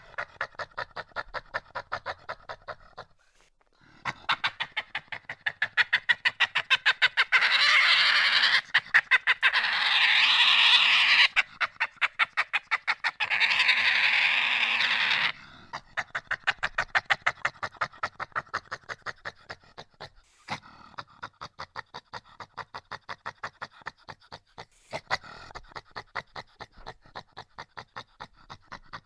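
Badger grunting in a rapid, rhythmic run of short grunts, several a second, pausing briefly about three seconds in, with two louder, harsher stretches in the middle.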